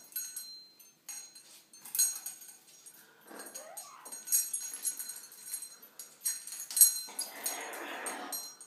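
Amazon parrot clambering on hanging metal rings with a small bell: the rings and bell clink and jingle several times. About three seconds in the parrot gives a short rising call, and near the end there is a longer rustling burst.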